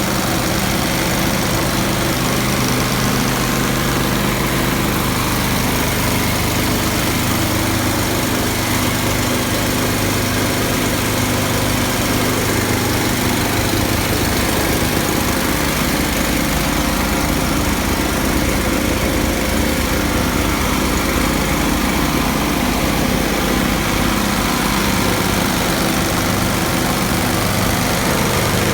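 Quincy two-stage cast-iron air compressor with a 13 hp drive, running steadily. Its low note changes slightly about halfway through.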